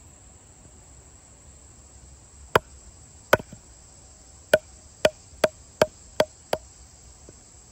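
Wooden baton striking the spine of a Condor Swamp Romper bushcraft knife to drive it down through a piece of hard maple: eight sharp knocks, two spaced a little apart, then six in quicker succession.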